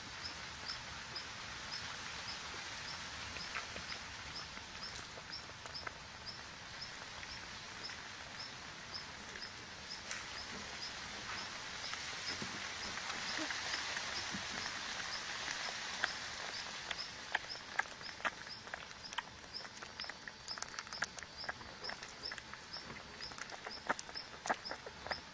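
Outdoor ambience: a short high chirp repeats evenly, a little over twice a second, over a steady hiss. Scattered clicks and rustles come in the second half.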